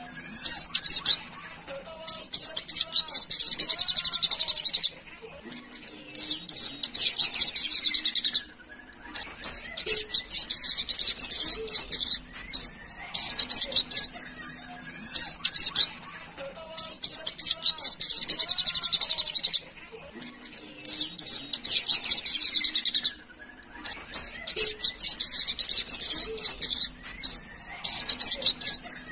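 Olive-backed sunbird (sogon) singing: a fast, high-pitched twittering song in repeated bursts of one to four seconds, with short pauses between them.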